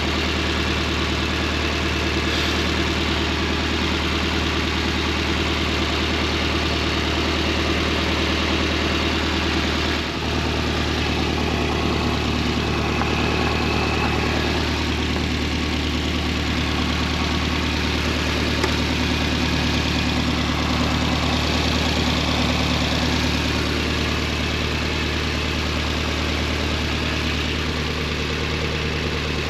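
Nissan 240SX engine idling steadily, left running to warm up and recharge its battery, with a brief dip in the idle about ten seconds in.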